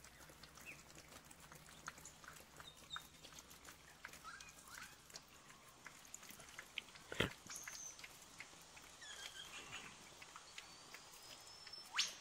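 Faint scattered bird calls in eucalypt bush: a few short whistles and chirps, one a rising whistle near the end. Light clicks and crackles run underneath, with a sharp knock about seven seconds in and another near the end.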